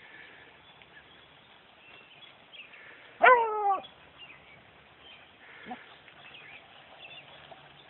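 Beagle baying once on a rabbit hunt: one loud bawl about three seconds in, lasting about half a second and dropping slightly in pitch at the end.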